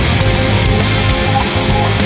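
Loud heavy-metal style rock music with a steady beat.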